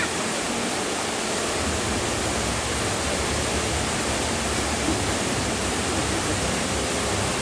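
A steady, even rushing noise with no clear events in it, like running water or moving air.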